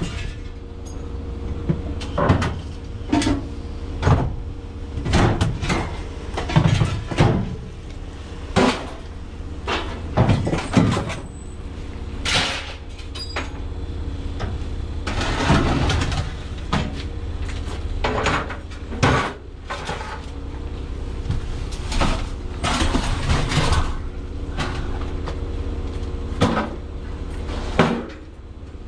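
Repeated knocks and clanks, irregularly spaced, over a steady low engine rumble: scrap metal being handled and thrown with a vehicle engine running.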